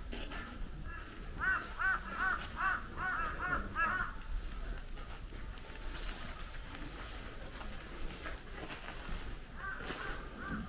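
A bird calling: a quick series of about eight short notes, each rising and falling in pitch, followed by a few fainter notes near the end.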